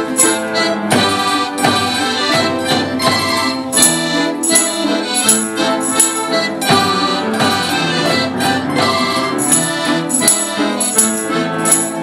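An orchestra playing a rhythmic piece full of quick notes, with bright jingling percussion accents coming back on the beat.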